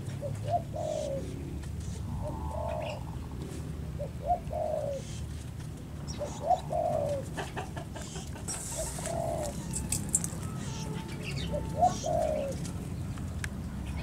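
A dove cooing in repeated phrases, each a few short notes running into a longer falling coo, about every two seconds.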